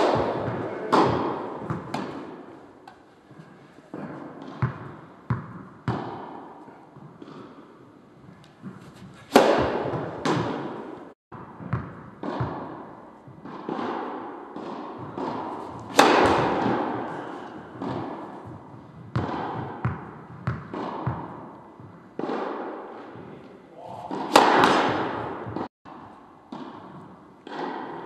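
Tennis balls struck by rackets and bouncing on the court, a string of sharp pops at irregular intervals, each ringing on with a hall-like echo. A few hits are much louder than the rest.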